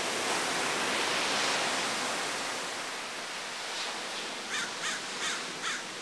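Ocean surf washing steadily on the shore, loudest in the first half. From about four seconds in, a crow gives a run of five or six short calls.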